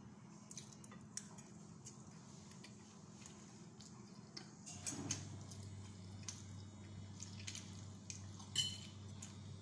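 Two metal forks clinking and scraping against a white plate while twirling and lifting instant noodles, in scattered light clicks, the sharpest about halfway, over a low steady hum.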